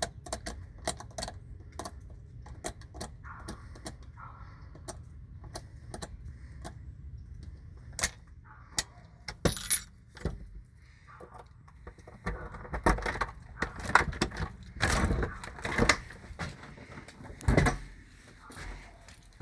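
Sharp metallic clicks and light jangling of keys being worked in a front-door lock. In the last several seconds these give way to heavier rattling and knocks as the door is opened.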